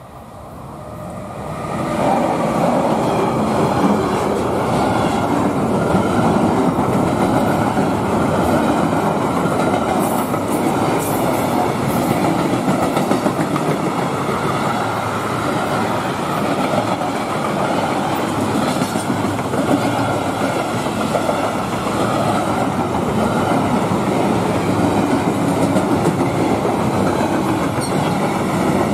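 A class 185 electric locomotive and a long freight train passing close by. It grows louder over the first two seconds, then the wagons go by with a steady rolling rumble and clatter of wheels on the rails.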